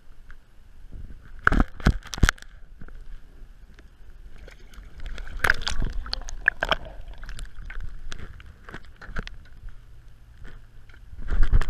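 Water sloshing and splashing against the side of a small aluminium boat as a hooked fish is brought alongside. There are three sharp knocks about one and a half to two and a half seconds in, and a flurry of splashes and clicks around the middle.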